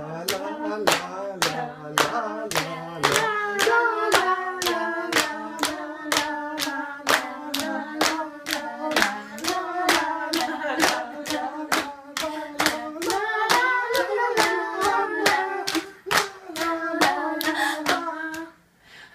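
A small group singing a tune together while clapping in time, about three claps a second. Both stop abruptly just before the end.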